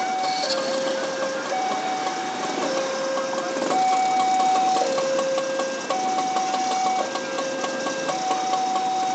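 Railway level-crossing warning alarm sounding from the horn loudspeaker on the crossing pole: two tones, a higher and a lower, alternating about once a second over a fast, even ticking, while a train passes over the crossing.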